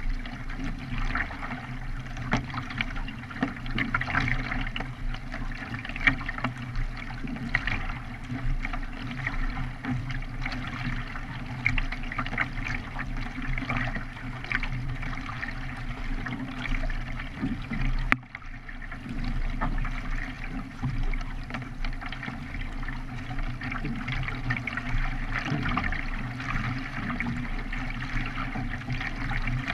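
K1 racing kayak under way: paddle blades dipping and splashing stroke after stroke, with water rushing along the hull, over a steady low rumble.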